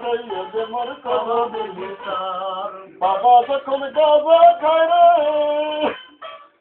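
A man singing a Bangla song over music, with long held notes in the second half and a short break near the end.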